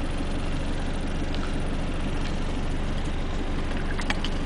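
Steady low rumble of a car heard from inside its cabin, with a few faint clicks about four seconds in.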